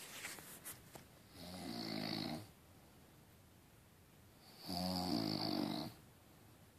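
Snoring: two long snores, each about a second long, roughly three seconds apart.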